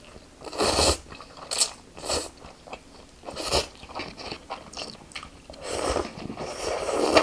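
A person slurping up instant ramen noodles from chopsticks, with chewing in between: one strong slurp about half a second in, a few short ones, and a longer slurp near the end.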